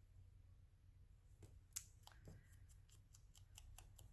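Faint scissors working paper: one sharp click, then a quick run of small snips and ticks.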